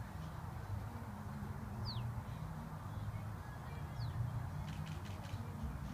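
A small bird's short, sharply falling whistle call, heard twice, about two and four seconds in, over a steady low rumble, with a few faint ticks near the end.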